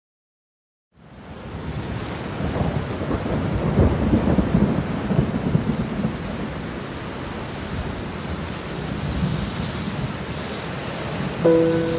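Rain with a rolling rumble of thunder. It fades in out of silence about a second in, swells a few seconds in and settles into steady rain; soft sustained music tones enter just before the end.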